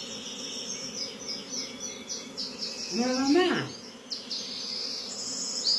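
A swarm of honeybees buzzing with a steady low hum as it settles into a bait box, with a series of high, quick chirps over it in the first half and again near the end.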